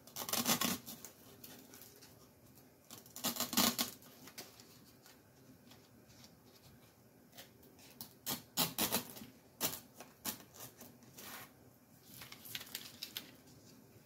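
Crisp rustling and crackling of coconut palm leaf strips being bent into loops and handled on a floral foam block, in short spells several times over.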